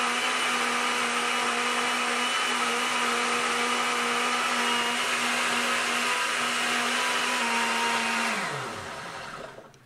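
Countertop blender running steadily, puréeing asparagus with broth and water into soup. About eight seconds in it is switched off and the motor winds down, falling in pitch and stopping about a second later.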